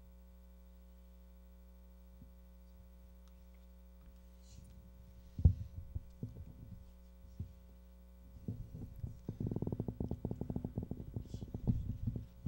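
Faint steady electrical hum from the lectern's sound system, then a sharp knock about five seconds in and, over the last few seconds, a dense run of irregular low thumps and rubbing from a hand handling the lectern microphone.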